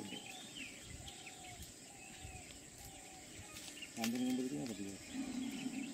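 Small birds chirping over a steady high insect buzz. About four seconds in, a brief human voice rises above them.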